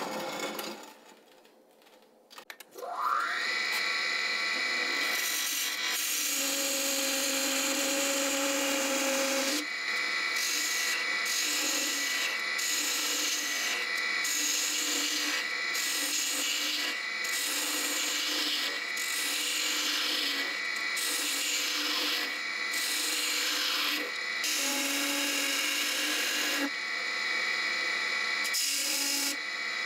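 Wood lathe spinning up with a rising whine about three seconds in, then running steadily while a narrow parting tool cuts into the spinning wooden goblet at its base. The cutting noise comes in short, repeated strokes over the lathe's steady whine.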